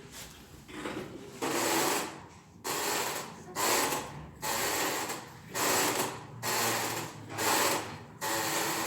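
Office chair frame creaking and squeaking in repeated strokes, about one a second, as the chair is tested. It is a terrible squeak that the repairer puts down to loose armrest mounting bolts or worn washers on those bolts.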